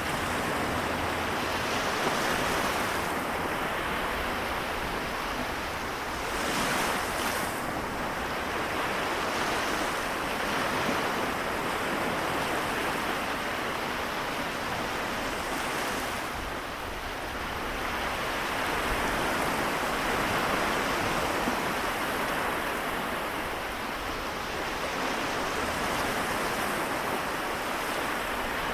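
Small waves of the Seto Inland Sea washing against the shore in a continuous hiss that swells and ebbs every several seconds.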